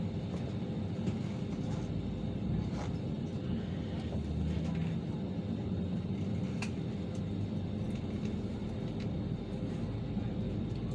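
Steady low drone inside the cabin of an Airbus A320 on the ground, with a couple of light clicks.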